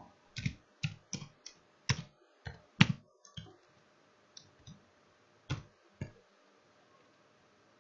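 Typing on a computer keyboard: about a dozen separate key clicks at uneven spacing, the loudest near the middle. The typing stops about six seconds in.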